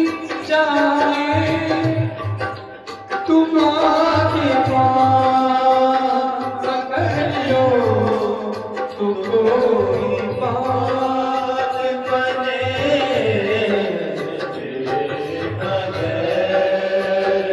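A Hindi devotional bhajan: a man singing long, bending melodic lines through a microphone, over a steady hand-drum beat.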